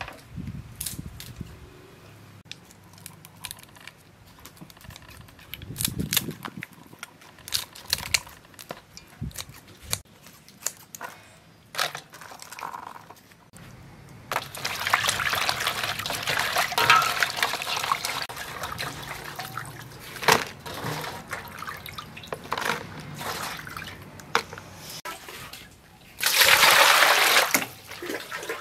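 Kitchen scissors snipping the shells and feelers of giant freshwater prawns, a series of sharp clicks, then water sloshing as the prawns are washed in a steel bowl. Near the end comes a louder burst of rushing water.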